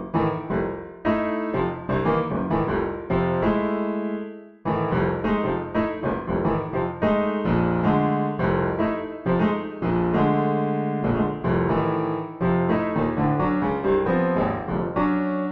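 Improvised keyboard music in a piano sound, a human-machine improvisation with the Mimi system: busy chords and note runs. One chord is left to die away about four seconds in before the playing picks up again.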